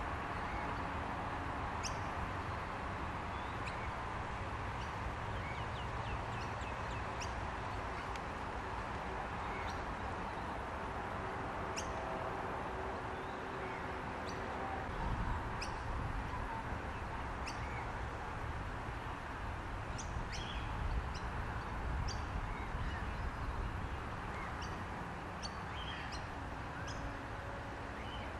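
Outdoor ambience of wild birds: brief, high chirps scattered throughout over a steady hiss, with low rumbling from about halfway through.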